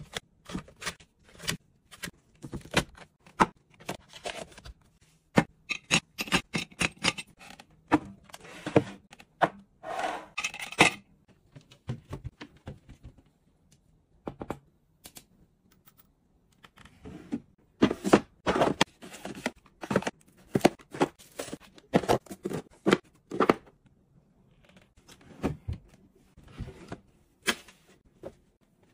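Handling noise of things being sorted and put away: crinkling foil sheet-mask sachets and sharp clicks and taps of them set into a clear acrylic organizer. The sounds come in busy runs, with a sparser stretch in the middle.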